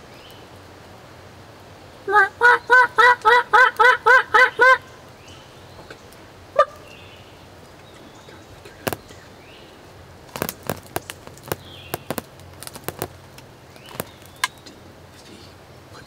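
Wild turkey yelping: a run of about eleven yelps at about four a second, then a single note a couple of seconds later. Later come a scatter of short, sharp clicks.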